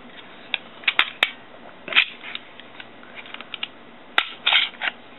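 Glock 19 Gen 4 pistol being field-stripped by hand: a series of sharp metallic clicks from the slide and takedown lever, with short sliding and rattling scrapes as the slide comes off the polymer frame.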